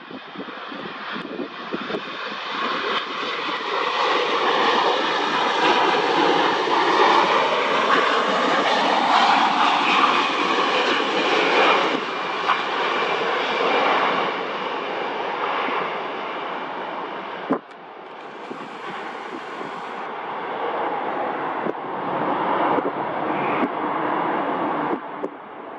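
Boeing 787-9 jet engines of an airliner passing close overhead on landing approach: the engine noise builds over the first few seconds, then the engine tones slide down in pitch as it passes. About two-thirds through the sound dips suddenly, then rises again as the airliner rolls down the runway after touchdown, with wind on the microphone.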